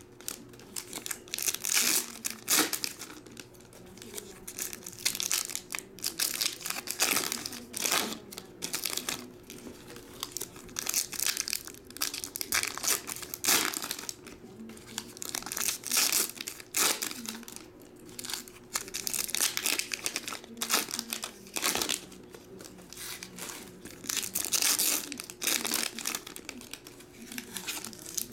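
Foil wrappers of Topps Chrome baseball card packs being torn open and crinkled by hand, in repeated irregular bursts of crackling every second or two.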